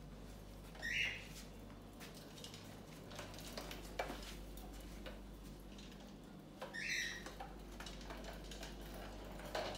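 Clear plastic gerbil exercise ball rolling over ceramic floor tiles: a run of quiet clicks and rattles, with a sharper knock about four seconds in. Two short high-pitched sounds stand out, about a second in and around seven seconds.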